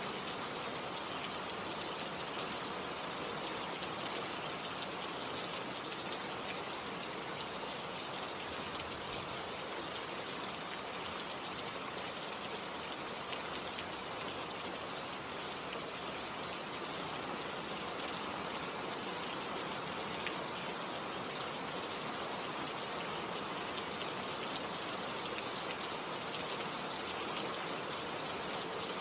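Steady rain falling, a dense even hiss of drops with fine patter.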